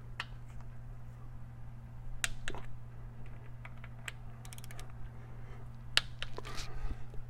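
Hand tools and Torx bolts clicking and tapping on the engine's metal parts in scattered single clicks, with a quick ratcheting run of clicks about four seconds in, over a steady low hum.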